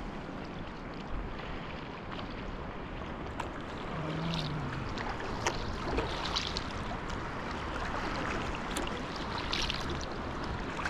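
Paddling on a river: flowing water and wind on the microphone, with a few paddle splashes.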